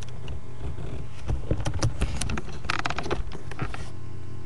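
Wooden toy trains and wooden track being handled, giving irregular light clicks and knocks over a steady low electrical hum.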